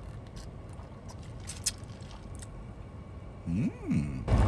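Quiet background with a few faint clicks, then a short hummed "mmm" that rises and falls in pitch, and a loud rushing noise that starts just before the end.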